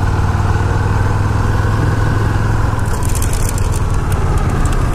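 2009 Buell 1125R's liquid-cooled V-twin running at a steady, unchanging engine speed while the bike cruises, mixed with wind noise. A run of short sharp crackles comes in over the last two seconds.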